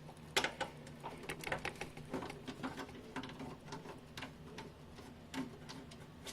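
Screwdriver backing screws out of a desktop computer's case: a run of faint, irregular small clicks and ticks.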